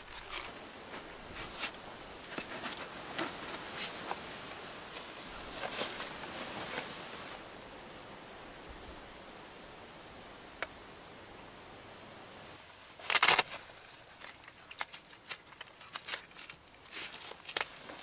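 Rustling and small clicks from handling a fabric storage bag and a coiled LED light strip, then a steadier faint hiss broken by one brief loud burst of noise about thirteen seconds in.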